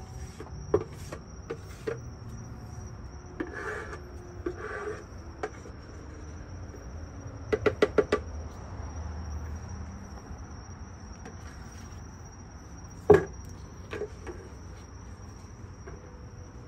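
Handling sounds of epoxy being poured from a plastic bucket and spread with a hand tool over the countertop: scattered light clicks and scrapes, a quick run of about six taps around eight seconds in, and one sharp knock about thirteen seconds in. A steady high-pitched whine and a low hum run underneath.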